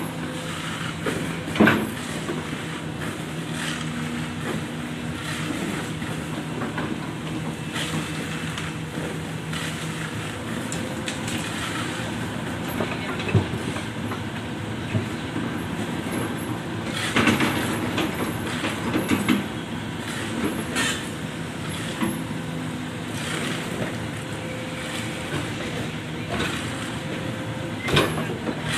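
Jonyang JY623E excavator's diesel engine running steadily while it works, with a few sharp metallic clanks and knocks from the bucket digging and loading soil, and a stretch of rough scraping and pouring a little past halfway.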